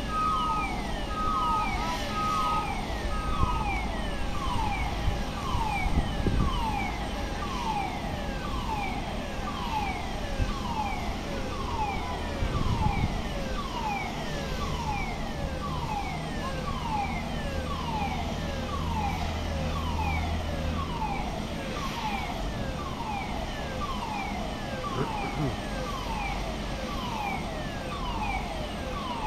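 Siren-like electronic tone that sweeps downward in pitch, repeating about once a second, over a steady whine. Four short even beeps sound in the first few seconds, and a low engine hum comes in about halfway.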